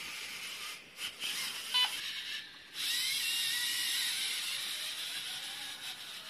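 LEGO EV3 Mindstorms motors and gear trains whirring as a LEGO Technic robotic arm moves. There is a brief sharp tick a little under two seconds in. From about three seconds in a louder motor whine rises slightly in pitch and then holds.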